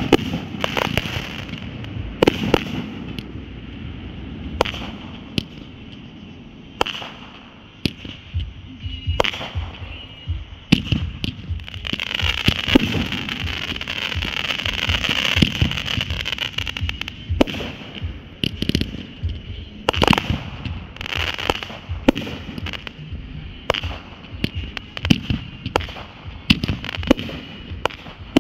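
Consumer firework cakes firing in a steady run of sharp launches and bursts, with crackling throughout. A stretch of pitched, gliding whistles comes in the middle.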